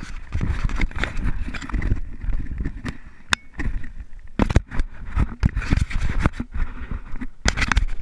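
Wind buffeting and handling noise on an action camera's microphone: irregular thumps, rubbing and crackles as the camera is moved about and pressed against a shirt, with a sharp click about three seconds in.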